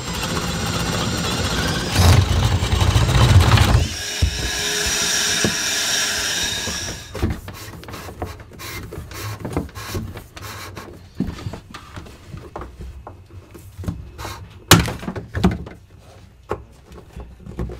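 Loud rubbing and scraping for a few seconds, then a steady whine for about three seconds. After that come scattered light clicks and knocks as flexible plastic water pipe is handled and fed through a wooden frame, with one sharper knock near the end.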